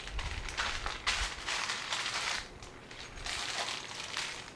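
Rustling and scraping as a vinyl pouch is opened by hand and a folded fabric softbox is pulled out of it, in a run of irregular scrapes and crinkles.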